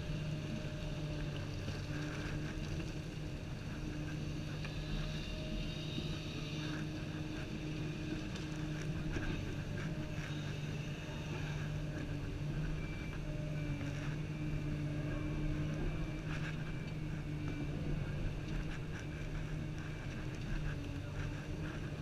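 Komatsu 350 excavator's diesel engine running steadily under working load, heard from inside the cab, with occasional short knocks and rattles as the operator swings and works the boom and bucket.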